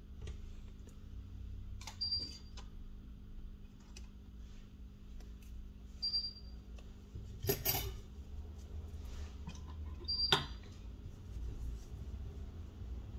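Small repair tools and phone parts being handled, giving scattered light clicks and taps with a louder clatter about halfway through. A short high beep repeats about every four seconds, over a steady low hum.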